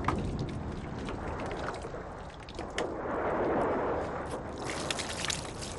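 Bucket hauled up out of a well on a rope, water sloshing and splashing, with a swell of rushing water about halfway through. A knock at the very start.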